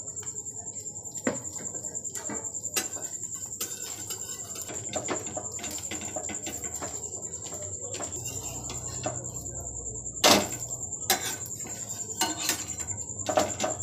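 Flat spatula scraping and tapping on a tawa as an egg-coated paratha fries in a little oil, with one louder knock about ten seconds in. A steady high-pitched cricket trill runs underneath.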